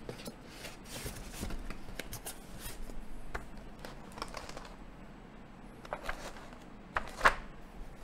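A rigid keyboard box being handled as its lid is fitted on: rubbing and scraping, with scattered light clicks and two sharp knocks about seven seconds in.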